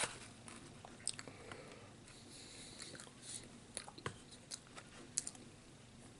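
A person chewing food quietly, with scattered small wet mouth clicks.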